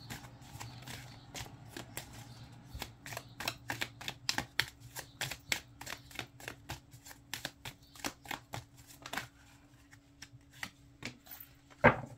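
A deck of tarot cards being shuffled by hand: a quick run of light card flicks and snaps, about three or four a second, that thins out later on. One sharp knock comes just before the end.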